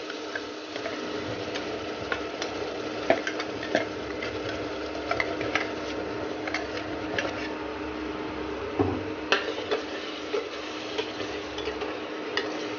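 Masala paste frying in hot oil with browned onions in a pan, sizzling steadily while a spoon stirs it, with irregular clicks and scrapes of the spoon against the pan.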